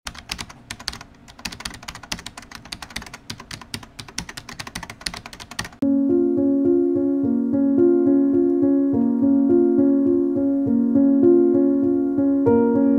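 Rapid clicking of computer-keyboard typing for about the first six seconds. Then piano-led background music starts abruptly and plays steady repeated chords.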